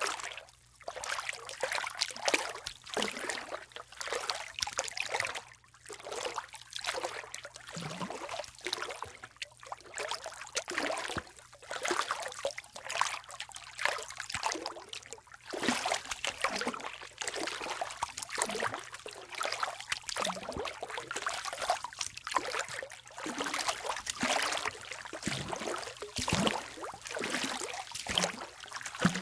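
A person wading into water, legs and feet sloshing and splashing with each step in an irregular run of splashes, about one or two a second.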